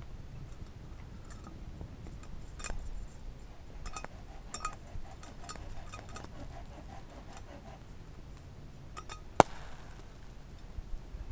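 Small clinks, taps and ticks of hard objects being handled, with a quick run of light ticks in the middle and one sharp knock about nine seconds in.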